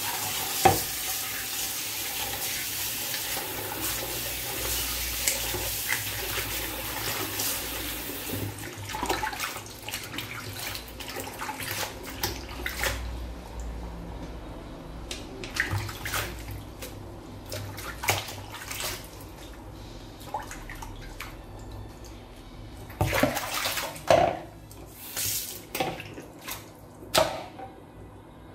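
Water running from a tap into a sink, a steady rush for the first several seconds, then lighter with scattered splashes and knocks as things are handled under the stream.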